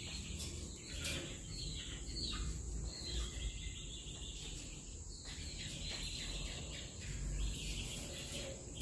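A steady high-pitched insect trill, with small birds chirping repeatedly in short, falling calls.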